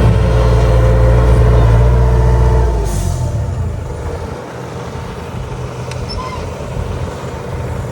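Heavy diesel engine of earthmoving machinery running hard, then easing off to a lower rumble a little under three seconds in, with a short hiss as it drops.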